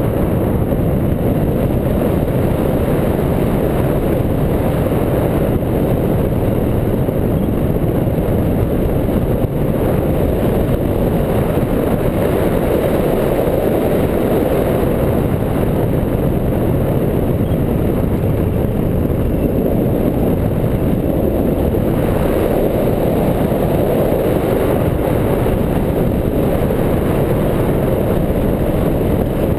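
Wind rushing over a camera mounted on a hang glider's wing in flight, buffeting its microphone: a loud, steady low rumble.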